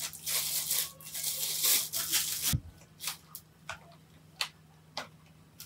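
Packaging rustling and crinkling for about two and a half seconds, then a few sharp, separate clicks.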